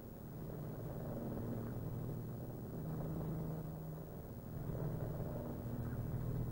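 Steady low drone of a Douglas Dakota's twin radial engines heard inside the cabin in flight, swelling and easing slightly.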